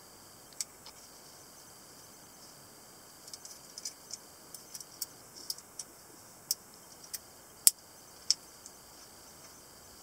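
Sharp metallic clicks of a small balisong's metal handles and latch as the butterfly knife is opened and handled, irregular and spread out, clustering in the middle and loudest near the end.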